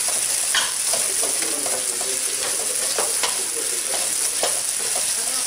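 Chopped onion, garlic and diced pancetta sizzling in a stainless steel pot, with a wooden spoon stirring and scraping the bottom in short strokes about two or three times a second.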